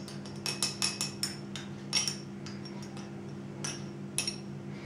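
A teaspoon stirring liquid in a glass, clinking against the glass about a dozen times at irregular intervals, each clink ringing briefly. A steady low hum runs underneath.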